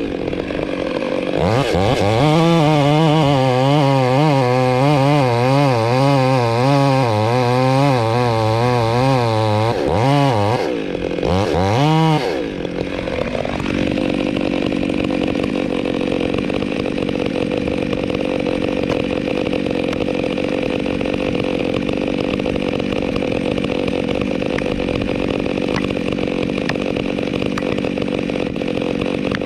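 Chainsaw cutting wood, its engine pitch wavering up and down as the chain bites. About ten seconds in it revs up and down twice. It then runs on steadily at a lower pitch.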